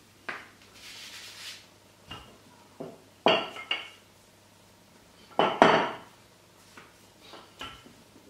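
Wooden rolling pin knocking and clacking against a hard worktop while tortilla dough is rolled out, with a soft rubbing of floured hands in the first second or so. The sharp knocks come in two pairs, the second pair just past halfway the loudest, followed by a few lighter taps.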